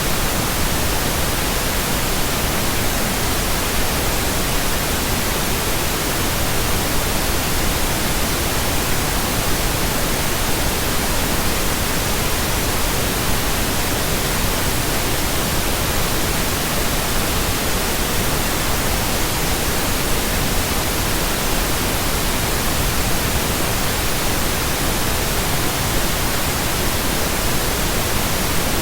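Steady synthetic pink noise: an even, unbroken hiss spread across all pitches, with no tones or changes.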